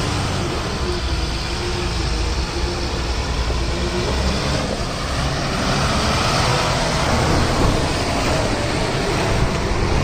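Heavy diesel engines working under load as a mud-stuck borewell lorry is towed out on a tow line by a JCB 3DX backhoe loader, a steady low running sound that grows a little louder in the second half.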